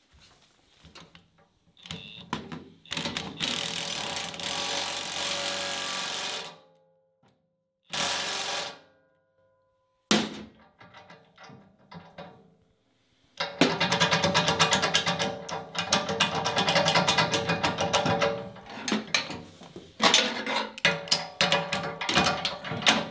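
Cordless impact wrench running in bursts and hammering rapidly as it drives the nut onto a rotary cutter blade bolt, followed by a string of short metallic clicks near the end.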